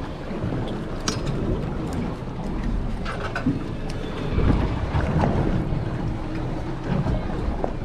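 Wind buffeting the microphone over water sounds on a small fishing boat at sea, with a few short clicks or knocks about one and three seconds in.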